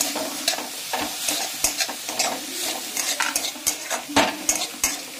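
A metal spatula scraping and clicking irregularly against a metal kadhai as it stirs chopped cabbage, carrot and onion, which sizzle as they shallow-fry over a high flame.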